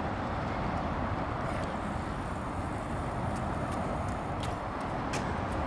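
Steady outdoor city noise, a low hum of distant traffic. A couple of sharp clicks come near the end.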